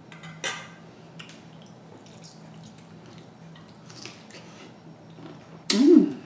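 Close-up eating sounds from a seafood boil: scattered wet clicks and crackles as fingers pick through buttery crab and shrimp, and chewing. Near the end comes one loud wet mouth sound with a brief rise and fall in pitch.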